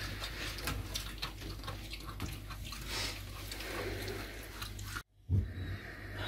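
Emaciated puppy chewing chicken from a hand: small irregular wet clicks and smacks over a steady low hum. The sound cuts out briefly about five seconds in and comes back with a thud.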